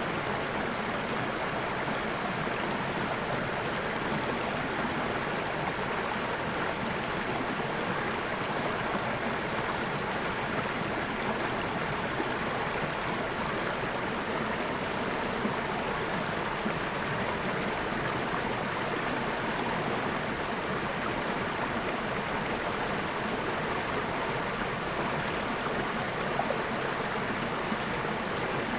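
Water flowing steadily in a stream, a constant rushing and babbling with no breaks.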